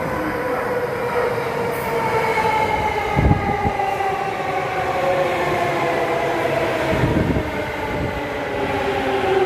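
Electric commuter train on the Sobu Line running over continuous welded rail, its motor whine falling steadily in pitch as it slows into the station, over a rolling rumble. Two low thumps come from the running gear about three and seven seconds in.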